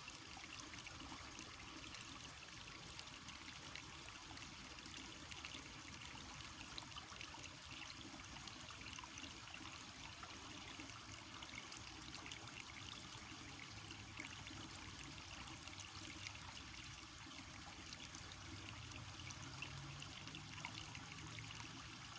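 Faint, steady trickle of a small creek's water flowing.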